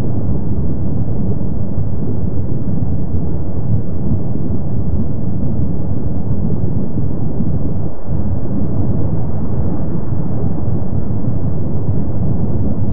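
Kilauea's lava lake fountaining, giving a steady deep rumbling roar with no breaks or distinct blasts.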